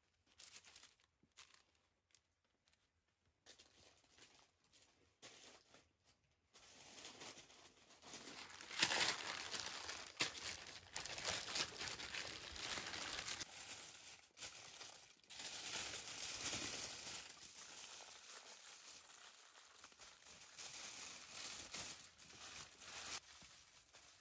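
Baking paper and aluminium foil crinkling and rustling as they are folded and pressed around a large whole fish. A few light rustles come first, then steady crinkling from about six seconds in, loudest soon after it starts and dying away near the end.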